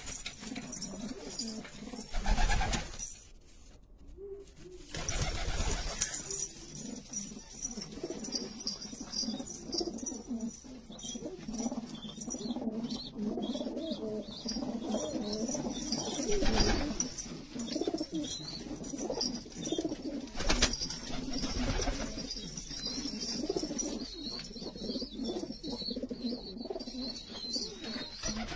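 A flock of domestic pigeons cooing together, a steady overlapping murmur of coos, with a few short bursts of flapping wings.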